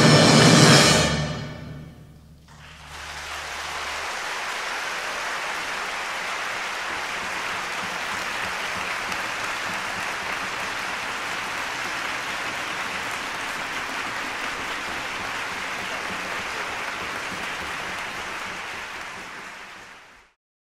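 A Chinese folk orchestra's final chord rings out and dies away about two seconds in. Audience applause follows, holding steady and then fading out near the end.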